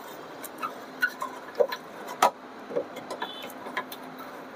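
Metal parts of an old gas stove being unscrewed and handled: scattered light clicks and taps, a few with a brief metallic ring, at irregular intervals.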